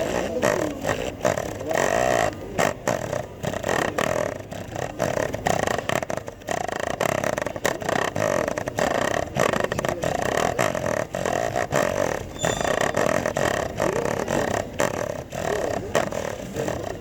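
Cat purring: a continuous purr that swells and dips several times a second.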